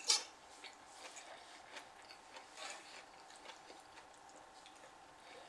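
A fork clicks sharply once against a metal tin plate, then faint chewing and small taps and scrapes as the fork twirls noodles.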